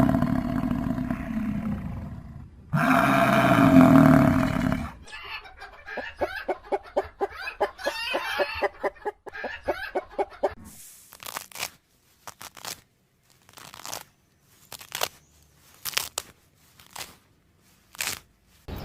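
Chickens: two longer calls, then a fast run of clucking, then separate short clucks spaced about a second apart.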